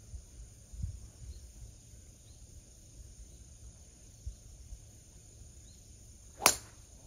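A single sharp crack of a golf club striking the ball about six and a half seconds in, over a low rumble and faint high chirps.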